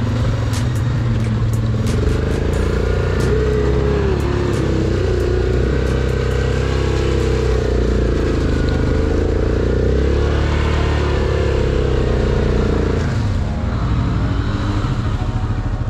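Yamaha Grizzly 700 ATV engine running under load through mud and water, its pitch rising and falling with the throttle, with muddy water splashing. The revs ease off about three seconds before the end.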